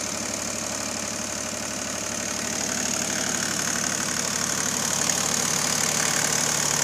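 Bombardier MPV-20's three-cylinder diesel engine idling steadily and smoothly, heard with the hood off; it idles really nice.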